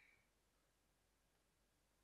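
Near silence: faint steady background hiss and low hum.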